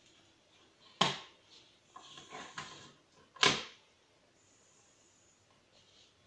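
Telescopic antenna of a vintage Monark Samarkand portable radio being swung up and pulled out: a sharp click about a second in, a short scraping rattle of the sliding sections, and another sharp click about three and a half seconds in.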